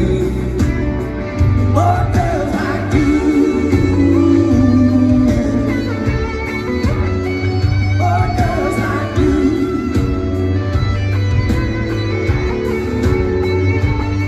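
Live country-rock band playing: electric guitars, bass and drums with a steady beat, with singing over it.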